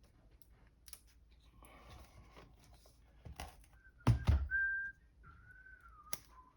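A man whistling a few soft, wavering notes while he works, over small clicks and knocks of tools on the laptop. A sharp pair of knocks about four seconds in is the loudest sound, and a last click comes just before the whistling stops.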